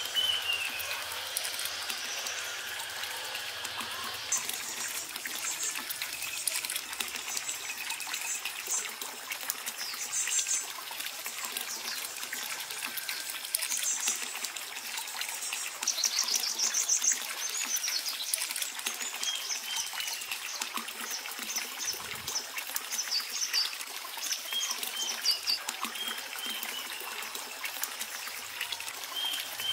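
A thin stream of water pouring steadily from a pipe into a partly filled pool, splashing and trickling. Birds chirp now and then above it, with a quick trill about halfway through.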